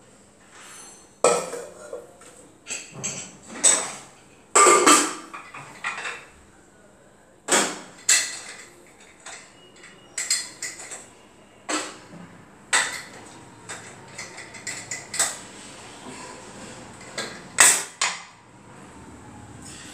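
An aluminium pressure cooker, its lid and steel pots being picked up and set down on a gas stove and counter. Irregular metal clattering and knocking, with about a dozen louder knocks among lighter clinks.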